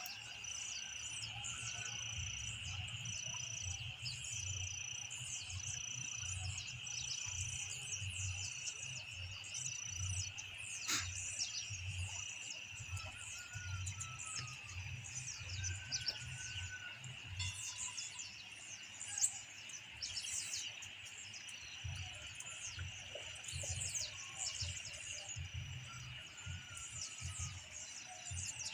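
Night chorus of insects and frogs: a steady high buzzing drone with a short call repeating about once a second and many quick chirps, over an irregular low rumble. There is one sharp click about a third of the way in.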